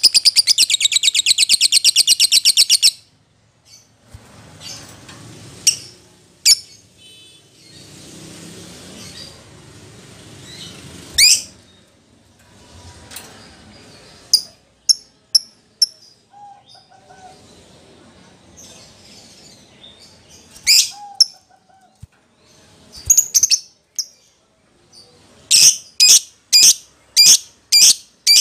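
Lovebird calling in the agitated 'fighter' style: a loud, very rapid high trill, then scattered sharp chirps, and near the end a run of loud, evenly spaced chirps about two a second.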